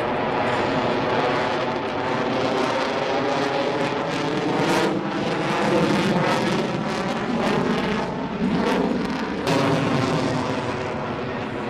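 Aircraft engine running steadily, with a dense stack of engine tones over a rushing noise and a couple of brief sharp spikes partway through.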